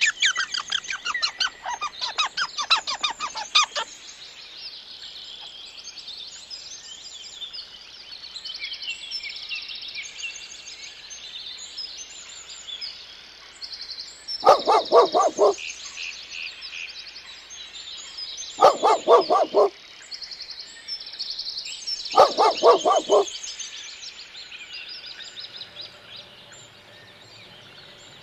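Small birds chirping without pause, with three loud, roughly one-second bursts of rapid honking calls from waterfowl about halfway through and after.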